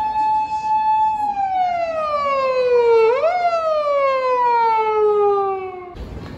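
Emergency vehicle siren wailing: the tone holds high, falls slowly over about two seconds, jumps back up and falls slowly again, then cuts off suddenly near the end.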